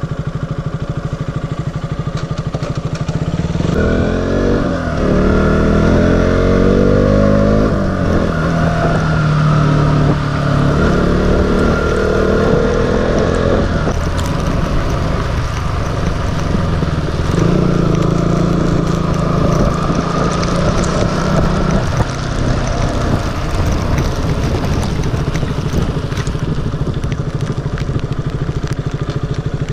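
Motorcycle engine idling, then pulling away about three and a half seconds in and revving up through the gears, its pitch climbing and dropping back at each shift, before settling to a steadier run.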